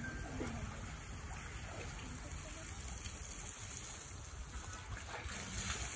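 Water from a garden hose spraying onto an elephant's hide and into its bathing pool, a steady splashing patter.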